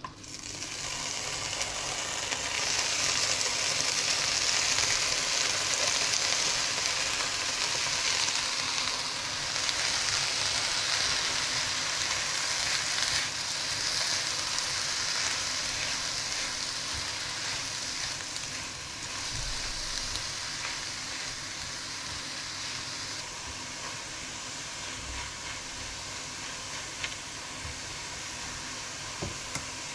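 Chopped fresh spinach sizzling in a hot frying pan as it is tipped in and stirred with a spatula. The sizzle builds within the first couple of seconds, then slowly dies down as the leaves wilt.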